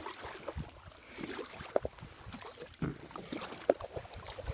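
Kayak paddling: water splashing and trickling off the paddle blades, with a few sharp knocks about a second apart.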